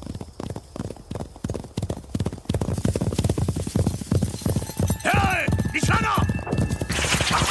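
Horses galloping hard, a rapid drumming of hoofbeats on dry ground. Two high calls that rise and fall in pitch cut through about five and six seconds in.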